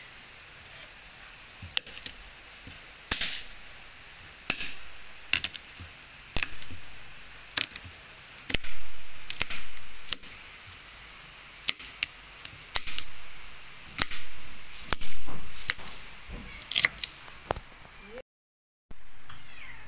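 Kitchen knife chopping garlic cloves and shallots on a plastic cutting board: irregular knocks of the blade on the board, some louder strikes trailing off briefly. Near the end the sound cuts out for a moment and gives way to the sizzle of the garlic and shallots starting to fry in a wok.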